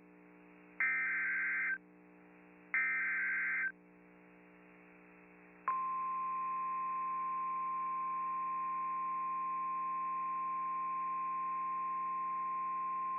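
Emergency Alert System SAME header: two harsh digital data squawks, about a second each and two seconds apart. About six seconds in, the steady single 1050 Hz NOAA Weather Radio warning alarm tone starts and holds, announcing a new warning. A faint low hum runs underneath.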